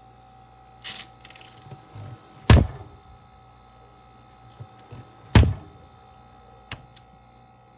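Mini glass-door beverage fridge running with a steady hum. Two loud thumps come about three seconds apart, with softer knocks before them and a lighter click later.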